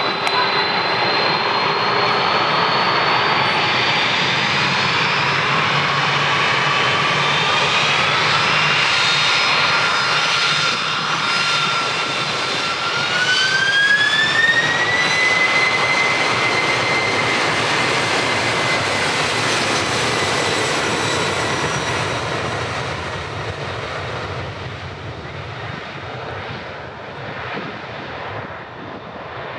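Four GE CF6-80 turbofans of a Boeing 747-400 spooling up to takeoff thrust: the engine whine rises in pitch, climbing steeply a second time about thirteen seconds in. The noise is loudest as the jet passes close, then fades as it accelerates away down the runway.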